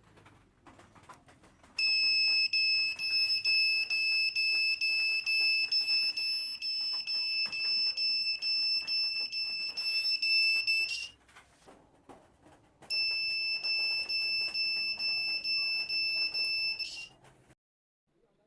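Smoke detector alarm sounding: one steady, high-pitched tone held for about nine seconds. It stops for a couple of seconds, then sounds again for about four seconds.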